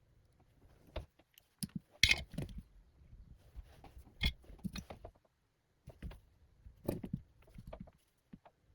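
Irregular small clicks, taps and rattles of tools and small parts being handled on a workbench, a few louder knocks around two, four and seven seconds in.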